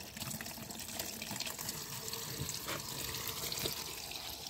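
Water from a tap running in a steady stream into a plastic tub, splashing onto muddy toy vehicles and the muddy water in the tub.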